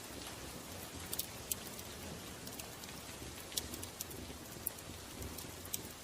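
Fire crackling: a steady hiss with scattered sharp pops every second or so.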